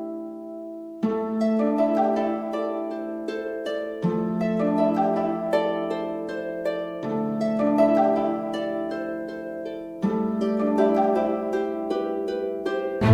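Background music: gentle plucked harp-like notes over a sustained bass note that changes about every three seconds.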